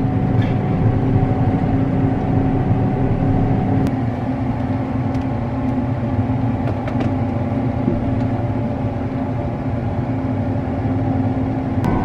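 Farm machinery harvesting corn, heard from inside a cab as a steady low engine drone with a faint whine; the sound shifts slightly about four seconds in.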